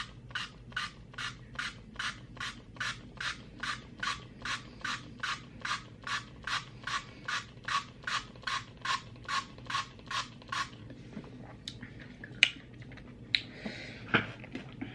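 Warheads sour candy pump-spray bottle being pumped rapidly into the mouth: a short spray hiss with a pump click about three times a second, some thirty sprays in all, stopping about eleven seconds in. A couple of sharp knocks follow near the end.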